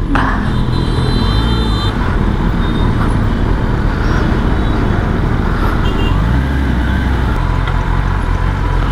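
Kawasaki ZX-10R inline-four engine running at low revs as the motorcycle slows to a stop and creeps forward again, with city traffic noise around it. A thin high tone sounds briefly in the first couple of seconds.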